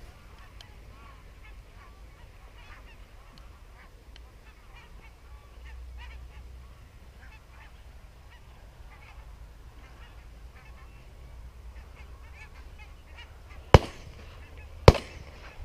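A flock of geese honking faintly, then two shotgun shots about a second apart near the end, from a Browning B25 over-and-under shotgun.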